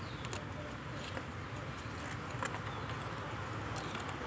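A few faint clicks and scrapes of a steel screwdriver prying at a holed freeze plug in a cast engine block, over steady background noise.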